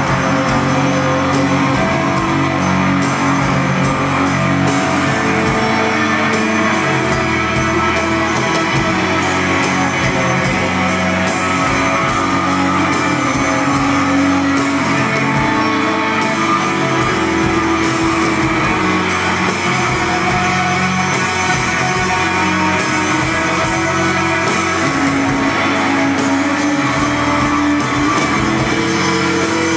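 Live rock band playing loud and without a break: electric guitars over a drum kit.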